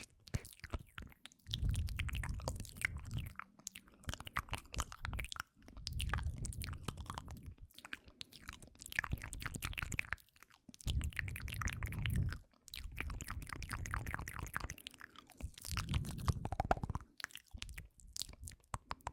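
Close-miked ASMR mouth sounds: dense, rapid wet clicks and smacks of lips and tongue. In several stretches a low muffled rumble sits underneath.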